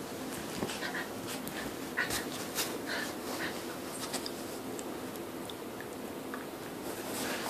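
Two miniature pinschers play-wrestling on a bed: scuffling and rustling on the fleece blanket, with short dog noises now and then, mostly in the first half.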